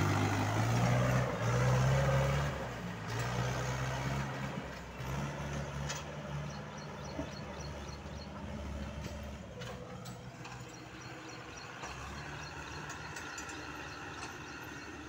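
Mahindra tractor's diesel engine working under load as it pulls away a trolley full of earth, loud for the first three seconds, then fading steadily as it drives off.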